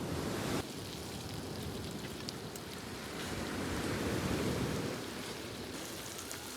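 Meat sizzling on a grill: a steady hiss with scattered small crackles and pops.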